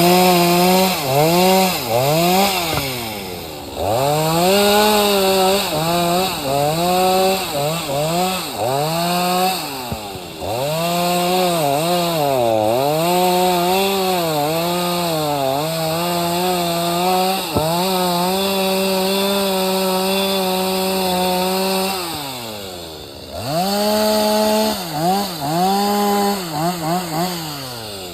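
Two-stroke chainsaw running at high revs and cutting oak firewood logs, its pitch sagging and recovering under load. It drops back to idle several times between cuts.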